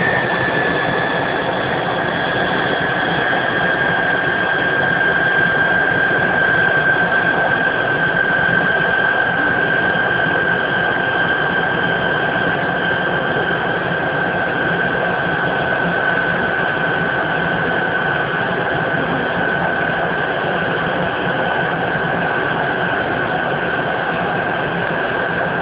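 Tupolev Tu-134A's Soloviev D-30 turbofan engines running during taxi, heard from inside the cabin: a steady rushing noise with a high whine that slowly falls in pitch.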